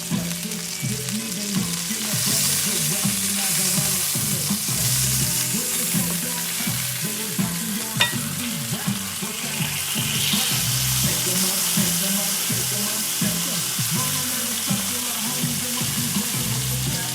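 String beans sizzling as they fry in a pan, with one sharp click about eight seconds in.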